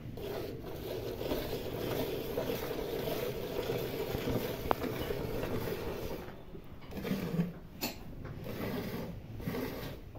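Milk squirting by hand from a cow's teats into a steel bucket partly full of frothy milk, in repeated streams.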